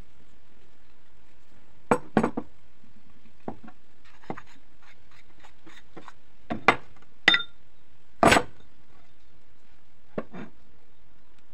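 Steel tubes of a motorcycle front fork handled and pulled apart on a wooden bench: scattered knocks and clinks, one with a short metallic ring, the loudest a little past the middle.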